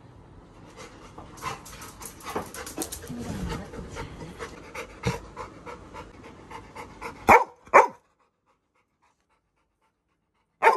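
Labrador retriever panting in a rhythmic run of quick breaths, with two short, loud sounds about seven seconds in; then the sound cuts off abruptly.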